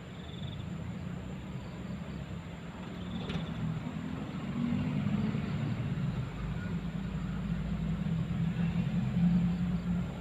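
A motor vehicle rumbling as it passes close by, its low engine and road rumble building from about three seconds in and staying strong to the end. A single short click sounds about three seconds in.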